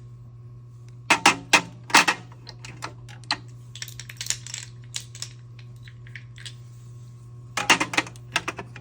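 Small glass mini perfume and rollerball bottles clicking and clinking against each other and the drawer as they are set in and shuffled around, in a few quick clusters with a short stretch of softer scraping in between.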